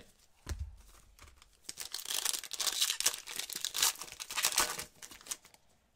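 Foil wrapper of a basketball trading-card pack crinkling and tearing as it is ripped open by hand, a crackly rustle from about two seconds in to about five seconds in. A soft thump about half a second in.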